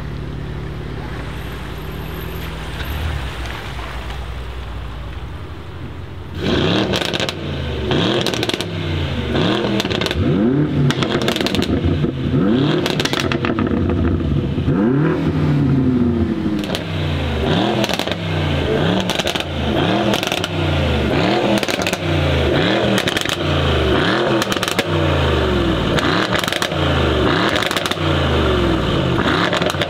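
Mercedes-AMG E63 S twin-turbo V8 with its catalytic converters removed, revved again and again from about six seconds in: quick rises and falls in pitch, one after another, with crackles and pops from the exhaust. Before the revving starts, a steady engine drone.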